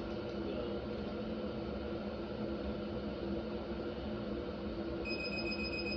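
A digital torque wrench gives a steady high beep starting about five seconds in, the signal that a head bolt has reached its set torque of 10 ft-lb. It sounds over a steady background hum.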